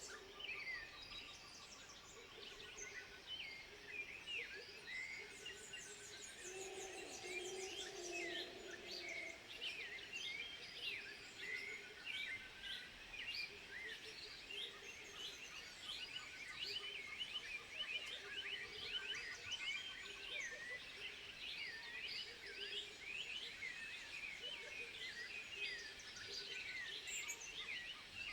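Many animals chirping and twittering together: a dense chorus of quick, high, sliding chirps that overlap without pause, with a lower warbling call about seven seconds in.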